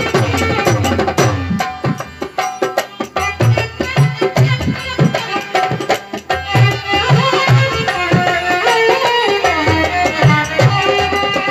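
Instrumental ghazal interlude: an electronic keyboard and a harmonium play the melody over a dholak beat.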